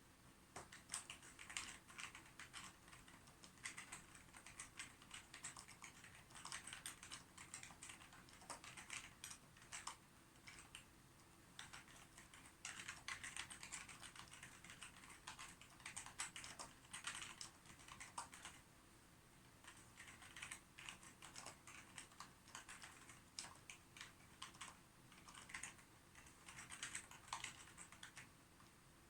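Computer keyboard being typed on in runs of quick keystrokes, each run a few seconds long with short pauses between.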